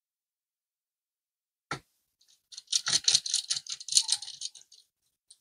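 A single click, then about two seconds of small metal laptop screws rattling and clinking as they are sorted through by hand.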